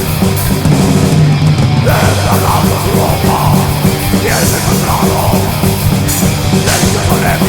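Loud heavy rock music, with a steady driving beat and a gliding melodic line over it from about two seconds in.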